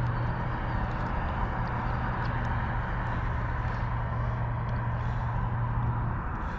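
A steady low motor hum over a broad, even hiss. The hum stops near the end.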